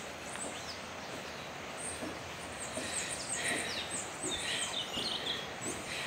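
Wild birds calling: scattered short high chirps and a few quick downward-sliding notes over a steady background hiss.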